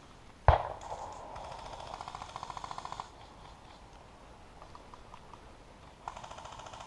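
A sharp thump about half a second in, then airsoft guns firing rapid automatic bursts, with a lull in the middle and firing starting again near the end.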